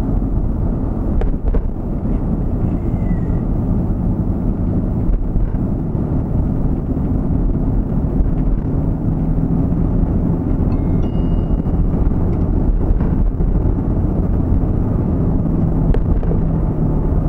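Steady road and engine noise of a vehicle being driven, a constant low rumble with a faint engine hum beneath it.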